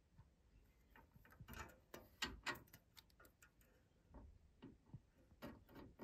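Faint, irregular small clicks and taps of plastic and cable as the CPU cooler's fan lead and connector are handled and fitted onto the motherboard header.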